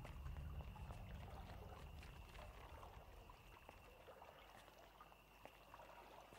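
Near silence: faint low room tone that fades away over the first few seconds, with a few faint ticks.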